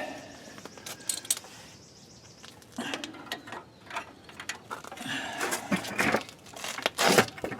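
Irregular metallic clinks, taps and short scrapes of hand tools and parking-brake hardware being handled, with a few sharp clicks about a second in.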